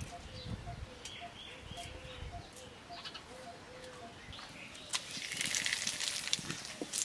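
A bay leaf and whole spices sizzling in hot oil in a kadai, starting about five seconds in and the loudest sound. Before it, a quiet rural background with a faint animal call repeating about twice a second.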